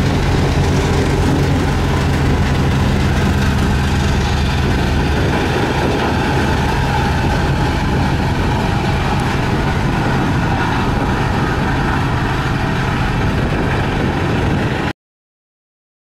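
Diesel engines of single-drum road rollers running steadily while the machines roll over a gravel road base, with a steady low hum for the first few seconds and a rougher engine sound after. The sound cuts off abruptly near the end.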